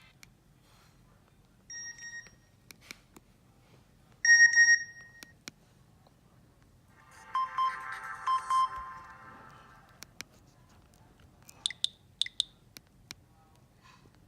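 Nokia 6790 mobile phone playing a string of short electronic alert tones with quiet gaps between them: a brief beep about two seconds in, a louder beep around four seconds, a short run of melodic notes around eight seconds, and a few faint blips near the end.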